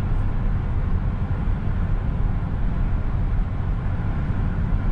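Steady road and engine noise inside a vehicle's cabin at highway speed: a low, even rumble.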